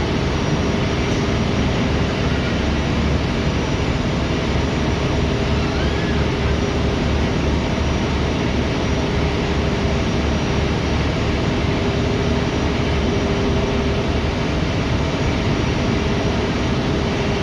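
Steady engine drone of a river car ferry under way, a low rumble with a constant hum and a rush of noise over it.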